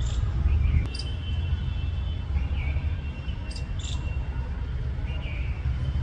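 A steady low rumble, with a few short high chirps and quick calls from birds scattered through it, and a thin steady high whistle during the first half.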